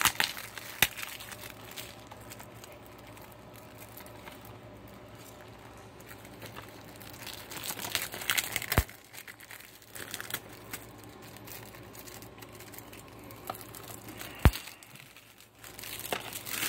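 Plastic shrink wrap crinkling and tearing as it is peeled off a DVD case, loudest in a burst about eight seconds in, with a single sharp click near the end.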